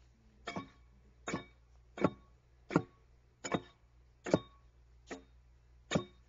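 Axe blows chopping into an oak log while a railroad tie is hewn by hand. There are eight sharp, evenly spaced strokes, a little under one a second, each with a brief metallic ring.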